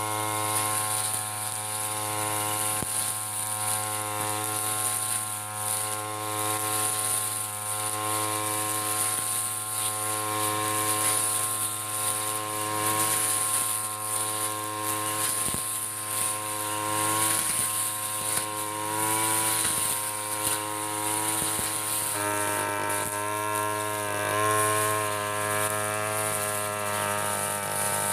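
Backpack brush cutter's small petrol engine running at high speed as it cuts grass, with its pitch wavering and dipping now and then in the second half as the cutting head meets the grass.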